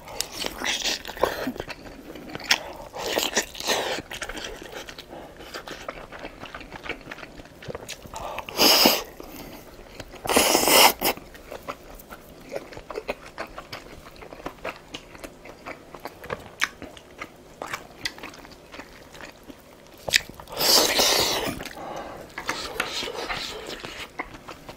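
Close-miked biting and chewing of large Korean dumplings (wang mandu): wet smacks and small clicks throughout, broken four times by a louder breathy rush of air.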